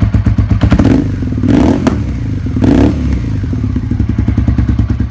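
Suzuki SV V-twin motorcycle engine running through an aftermarket exhaust, with rapid, even firing pulses, revved up briefly twice, at about one and a half seconds and at about three seconds.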